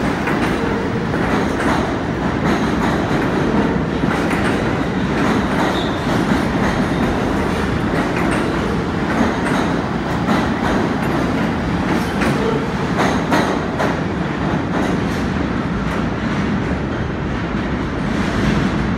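R46 subway cars of a New York F train rolling out of an underground station, a loud, steady rumble with the clickety-clack of wheels over rail joints.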